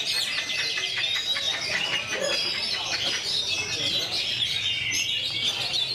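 Oriental magpie-robin (kacer) singing without a break: a fast, varied stream of clear whistles, sliding notes and rapid trills.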